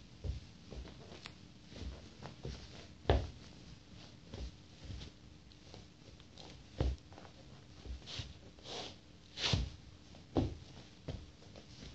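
Socked feet slipping in and out of white leather Nike Air Force sneakers: irregular soft knocks of the shoes and heels against a wooden floor, with rustling scuffs of sock fabric against the leather. The sharpest knock comes about three seconds in.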